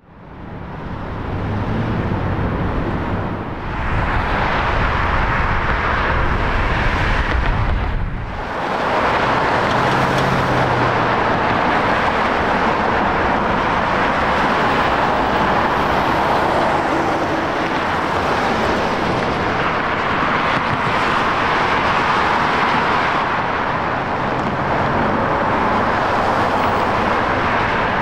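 Jet engines of a taxiing airliner, a UPS Airbus A300 freighter in the later part, running as a steady rushing noise. It fades in over the first second or so and briefly dips about three and a half and eight seconds in.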